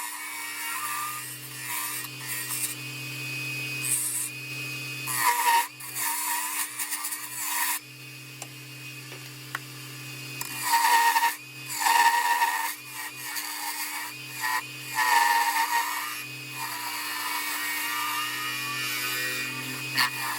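Wood lathe running, with a tool scraping against the spinning wooden ornament blank in irregular bursts that swell and drop off.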